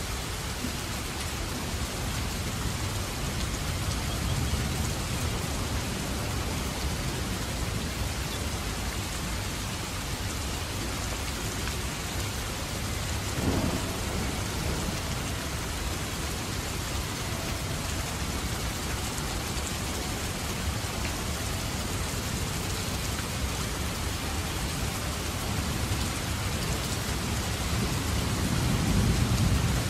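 Heavy rain pouring steadily, with thunder rumbling low underneath. A short, sharp thunder crack comes about halfway through, and a deep rumble swells near the end.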